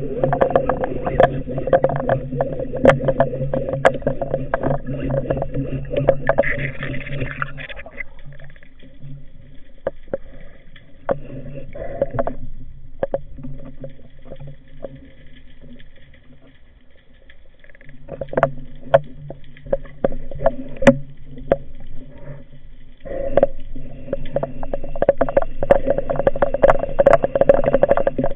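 Muffled underwater sound of a motor humming steadily. The hum drops away and returns a few times and is strongest near the start and near the end, with many sharp clicks and knocks throughout.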